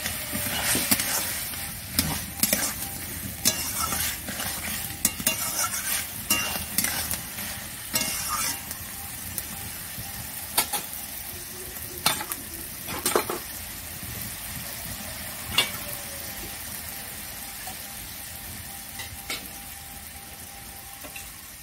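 Diced potatoes sizzling in a little oil in an iron kadai while a steel spatula stirs them, with irregular scrapes and clinks of the spatula against the pan. The clinks come often in the first half and more sparsely later.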